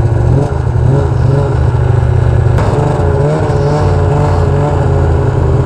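Ski-Doo snowmobile engine running steadily at low trail speed, its pitch wavering gently up and down partway through.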